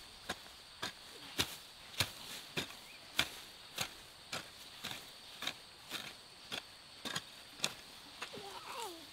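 Steady footsteps, about three steps every two seconds, each a short crisp scuff. A brief wavering animal-like call comes near the end.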